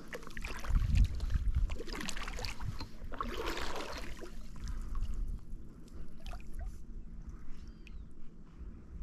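Water splashing at the side of a kayak, with dull knocks and handling sounds on the hull; a dull low thump comes about a second in, and a louder splash about three and a half seconds in.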